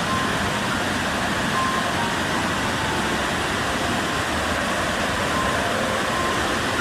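Waterfall in monsoon flow: a steady, loud rush of falling water.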